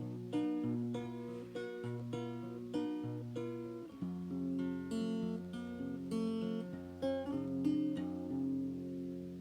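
Acoustic guitar in an open tuning, picked and strummed chords ringing out, a new attack about every half second, with the chord shape changing about four seconds in.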